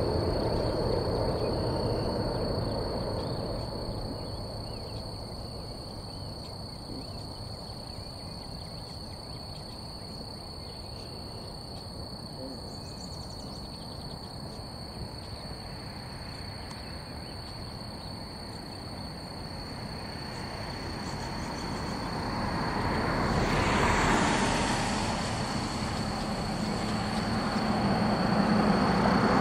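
Distant jet airliner noise from a Boeing 737 landing and rolling out on the runway: a hissing rumble that dies down, then swells loudly about three-quarters of the way through and rises again at the end.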